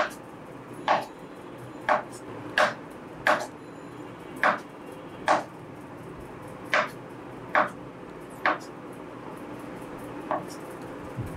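Kitchen knife chopping through soft palmyra palm fruit (ice apple) kernels and knocking on a wooden cutting board: about a dozen sharp knocks, roughly one a second at an uneven pace, the one near the end fainter.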